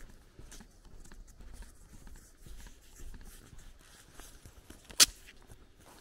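Footsteps on a dirt lane with faint rustling, and one sharp click about five seconds in.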